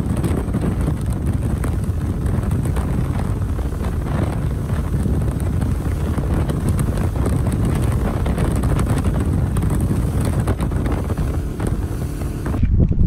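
Wind buffeting the microphone on a boat under way across open water, a steady low rushing rumble with the boat's running noise beneath it. It breaks off abruptly near the end.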